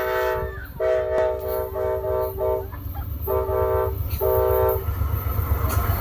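Amtrak locomotive's multi-note air horn sounding a series of blasts, several of them short and in quick succession. Under the horn, the approaching train's rumble grows louder toward the end.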